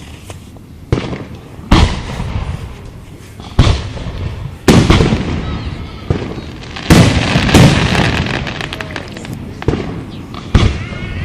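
Aerial fireworks shells bursting: about nine sharp booms, irregularly spaced, each trailing off in a rolling echo. A dense crackle runs through the middle, around seven to eight seconds in.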